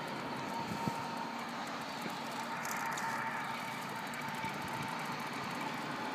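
Steady, faint outdoor background noise: an even hiss with a faint constant tone running through it.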